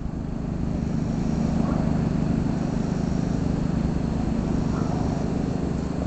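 Riding lawnmower engine running steadily, a low hum that swells a little over the first second and a half and then holds.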